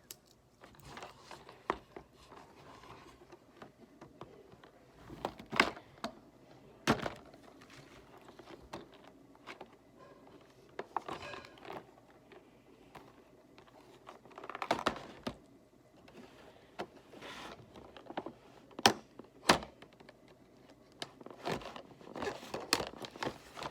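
Hands handling small items and hard plastic packaging: scattered knocks and clicks with short bursts of rustling.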